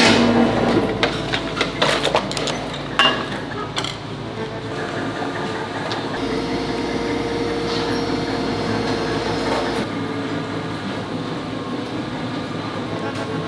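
Sharp metallic clanks and knocks of a steel mold plate and tool being handled at a compression-molding press, several in the first four seconds, then a steady machine hum.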